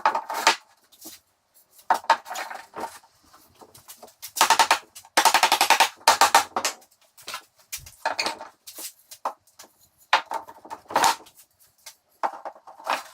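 A power drill run in short, irregular bursts while pre-drilling screw holes through a wooden cabinet back, with clicks and knocks between the runs.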